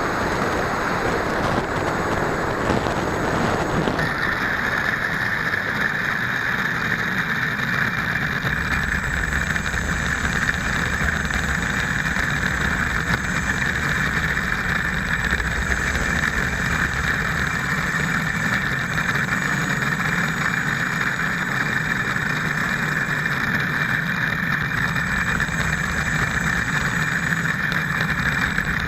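Steady drone of a model aircraft's motor and propeller, picked up by the onboard camera, with rushing air. About four seconds in, the hiss gives way to a steadier high whine that holds to the end.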